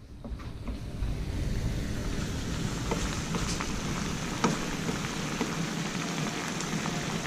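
Spice sauce with fish simmering in a pan, a steady bubbling sizzle that builds up about a second in. A few light clicks and scrapes of a spatula against the pan sound through it.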